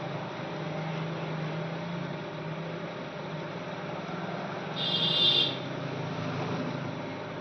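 Steady low hum with background noise, and one short high-pitched electronic beep about five seconds in.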